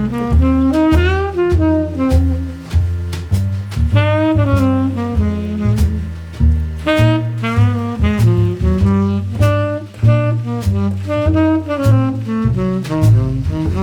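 Upbeat jazz background music: a saxophone melody with gliding notes over walking bass and a steady drum-kit beat.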